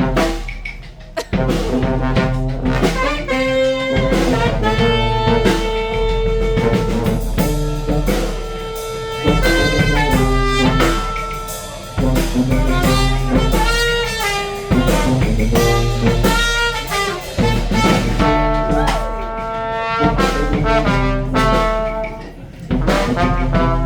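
A street brass band playing live: horns such as trumpets, saxophones and trombones over drums.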